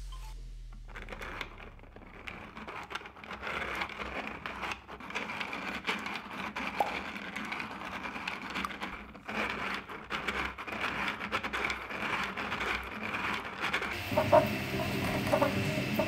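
A 3D-printed plastic V8 engine model being turned over by hand: a continuous, irregular rattle of small clicks and scraping from its pistons, connecting rods and crankshaft. Music comes in near the end.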